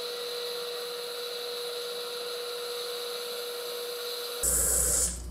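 Mealthy Multipot electric pressure cooker venting steam through its float valve while pressure builds: a steady hiss with a thin whistling tone. About four and a half seconds in, the whistle cuts off with a brief louder burst as the float valve pops up and seals, a sign that the pot has reached pressure.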